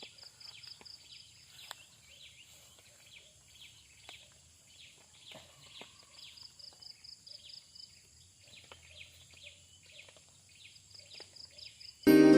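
Forest insects and birds: a steady high insect drone with fast pulsing trills and quick repeated falling chirps, all fairly faint. Loud music cuts in suddenly near the end.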